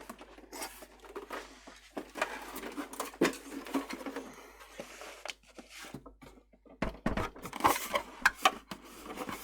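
Irregular clicks, taps and light knocks of an electronic keyboard's plastic housing being handled and fitted back together, busiest near the end.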